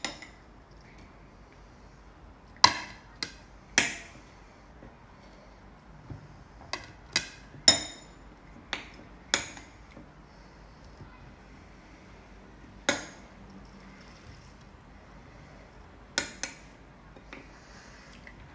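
A metal spoon clinking against a plate and a glass bowl as cubes of watermelon are spooned in: about a dozen sharp, separate clinks, some in quick pairs, with quiet gaps between.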